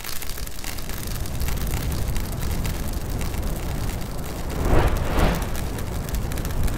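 Logo-transition sound effect: a steady crackling, rumbling noise bed, with a whoosh that swells and fades about five seconds in.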